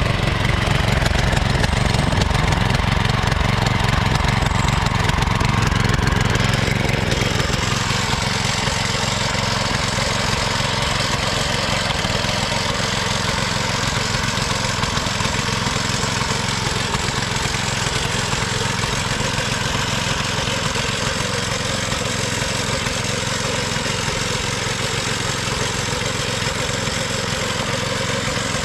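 Small petrol engine of a homemade race mower, built on a ride-on lawnmower chassis, running steadily. It eases off a little about seven seconds in, then carries on at an even pitch.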